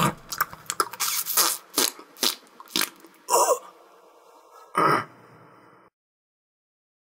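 A man eating a sandwich noisily: a quick string of sharp, wet smacking and chewing sounds, then two louder bursts of mouth noise, about three and a half and five seconds in. Silence follows from about six seconds.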